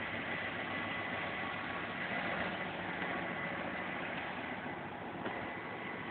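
Diesel locomotive engine running steadily, with a faint thin whine over it. The locomotive is the one the uploader names as a GE GT22.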